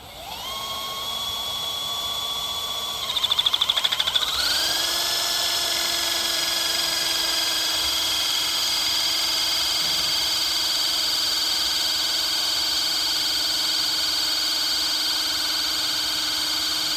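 Ilsco Taskmaster battery-powered hydraulic crimper's pump motor running under load as it compresses a crimp sleeve onto MI cable. About three seconds in it flutters briefly, then rises to a higher, steady whine and keeps running, with no pop from the pressure-relief valve that marks a finished crimp.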